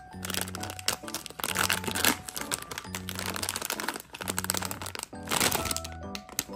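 Printed plastic blind-box bag crinkling and rustling as hands open it and pull a plush toy out, loudest around two seconds in and again around five seconds in. Background music with a repeating bass note plays underneath.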